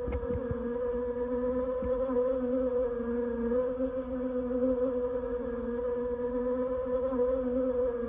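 A swarm of bees buzzing, a steady hum with a slightly wavering pitch, cutting in suddenly.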